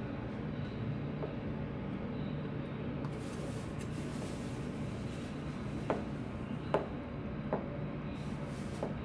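Chinese cleaver cutting down through a block of tofu and knocking on a plastic cutting board, four sharp knocks about a second apart in the second half, over a steady low hum.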